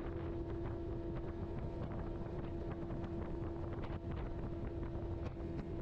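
Metal-hulled fishing boat running at speed: a steady motor note holding one constant pitch under heavy wind buffeting on the microphone, with frequent knocks as the hull hits small waves.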